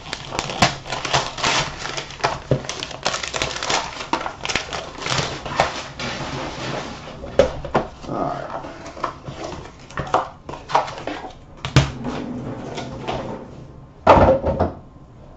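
Gold foil wrapping paper being torn and crinkled off a cardboard box, a dense run of crackling for the first few seconds. After that come sparser rustles and knocks as the cardboard box is handled and opened, with a short louder burst of noise near the end.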